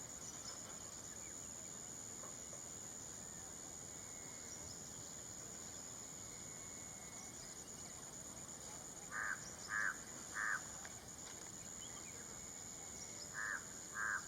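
A bird giving short, harsh calls: three in quick succession, then two more a few seconds later, over a steady high-pitched drone.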